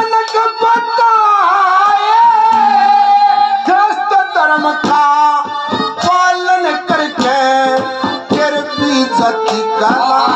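Male singer singing a Haryanvi ragni through a microphone and PA, loud and high-pitched, holding long notes over instrumental accompaniment.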